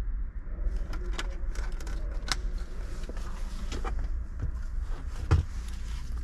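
Scattered plastic clicks and rattles of wiring-harness connectors being handled and plugged into a car's factory radio, with one louder knock about five seconds in, over a low steady hum.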